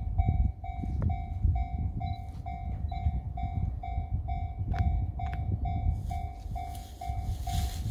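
Japanese level-crossing warning bell ringing steadily, a single pitched tone struck about twice a second, signalling an approaching train. A low rumble runs underneath, and a hiss builds near the end.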